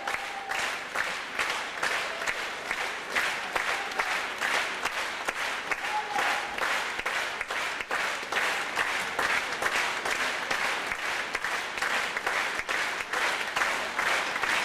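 Large theatre audience applauding steadily: many hands clapping at once, without a break.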